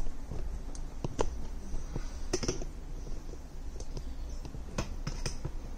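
Handling noise: a handful of sharp clicks and light knocks at irregular intervals, over a low steady hum.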